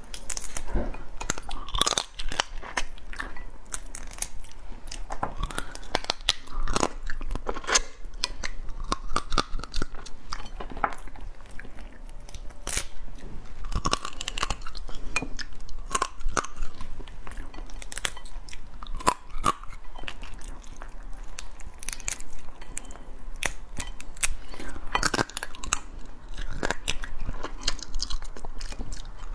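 Close-up eating of soy-marinated crab: shell and legs cracking and crunching as they are broken and bitten, with chewing in between. Many sharp, irregular cracks and clicks, some in quick runs.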